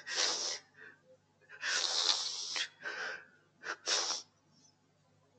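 A man's loud breathy hissing into a close microphone, in about four bursts over the first four seconds, the second about a second long.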